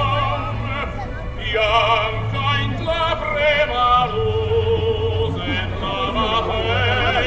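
Music: a melody with a strong, wavering vibrato, opera-like singing or a sustained lead line, over a steady low bass.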